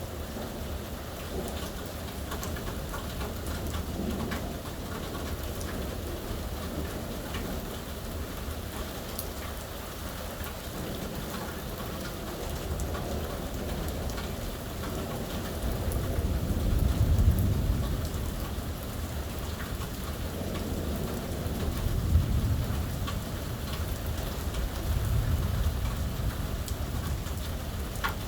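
Steady heavy rain falling, with low rumbles of thunder rolling in several times in the second half, the loudest about two-thirds of the way through.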